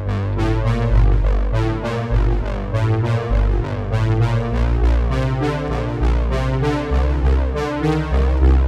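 Background music: an electronic track with synthesizer and keyboard over a steady beat and strong bass.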